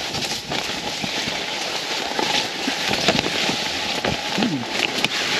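Box blind being dragged over the ground, a steady scraping and rustling with scattered small clicks and knocks.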